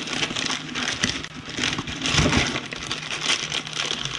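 Rummaging through a box of spare RC car parts: rustling, crinkling packaging and small parts clicking and clattering.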